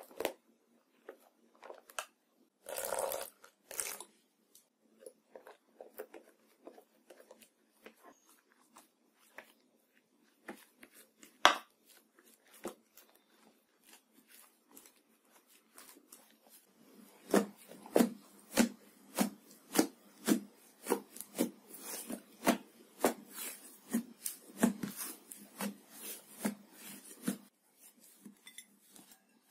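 Foamy iceberg slime being stirred with a stick in a glass baking dish, making sticky clicks and pops, with one sharp knock near the middle. From about halfway, as the slime gathers into a thick mass, a quick run of squelching pops comes two or three a second.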